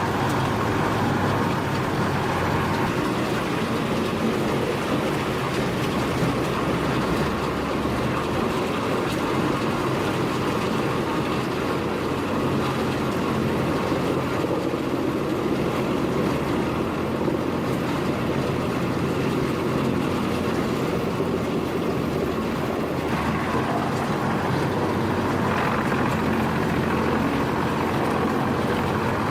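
Heavy industrial wood shredder running steadily: a continuous, even machine noise with a constant hum.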